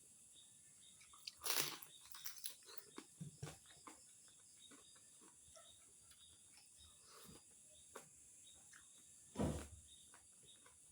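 Close-up chewing of crispy fried pig face, with scattered faint crunches and two louder crunches, one about one and a half seconds in and one near the end.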